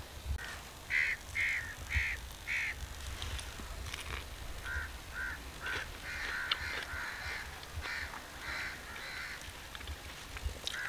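Crow cawing repeatedly: four caws in quick succession about a second in, then a longer run of caws from about halfway through.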